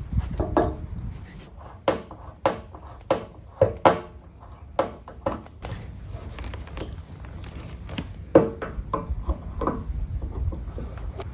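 Irregular knocks, taps and clunks as a rubber filler-neck hose is worked onto the filler opening of a new steel fuel tank and its hose clamp is fitted with a screwdriver.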